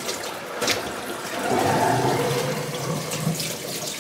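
Water running from a kitchen tap into the sink as spinach is washed.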